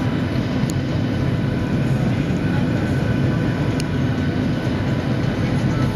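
Steady cabin drone of a jet airliner's engines and airflow during descent, with a faint steady whine above it.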